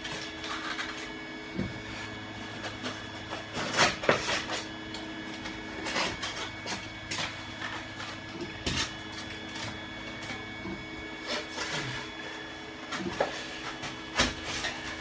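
Utility cutter knife cutting and scraping a block of rigid foam board, irregular short scratchy strokes with the block knocked and handled now and then, over a faint steady hum.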